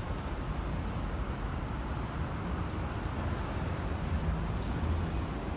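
Steady city background noise: a low, even rumble of distant traffic with no distinct passing train.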